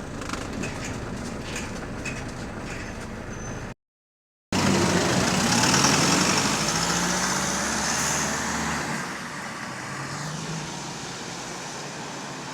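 On board a double-decker bus: the engine running with rising and falling pitch, under a loud rushing whir from the hydraulic cooling fan. About nine seconds in the drone cuts out, leaving a quieter running sound: the fan keeps switching on and off, and sounds knackered. A brief gap of silence about four seconds in.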